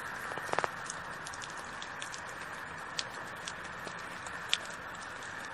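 Steady rain hiss with scattered sharp drip-like ticks, while a cat eats wet food from a metal bowl; a short cluster of clicks comes about half a second in.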